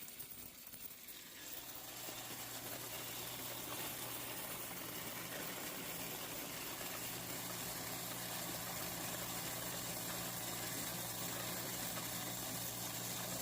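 Electric coin counter running with a steady motor hum as a large batch of quarters passes through it; the motor starts about a second and a half in.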